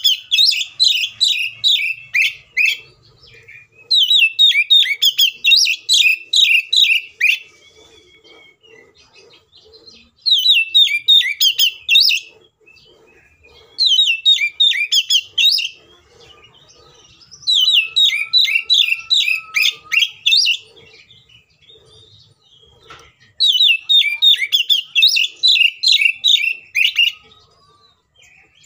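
Oriental magpie-robin singing loudly in six bursts of rapid, sharp, down-slurred notes, each burst two to three seconds long with short pauses between. It is the vigorous, combative 'fighting' song used as a lure to set other magpie-robins singing.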